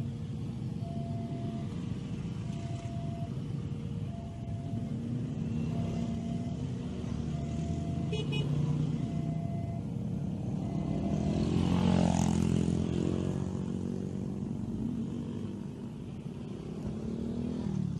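Railway level-crossing warning alarm sounding a regular two-tone signal, alternating high and low notes, over the running of many motorcycle engines as traffic streams across the tracks. The alarm stops about eleven seconds in. Soon after, a motorcycle passes close with a rise and fall in pitch, the loudest moment.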